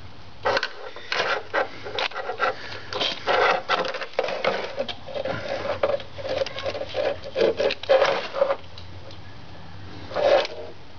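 Irregular clicks, taps and short scrapes from hands and a tool working around the plastic headlight housing and its lower mounting bolt, quieter for a moment near the end, then one more burst.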